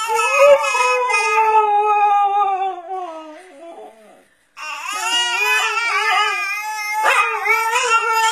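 A dog howling: two long howls with a short break about four seconds in, the first sagging slowly in pitch, the second wavering up and down.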